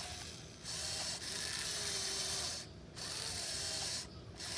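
Small electric gear motors of a 1580 RC excavator whining as the arm and bucket work, with gear noise. The motors stop briefly twice and start again.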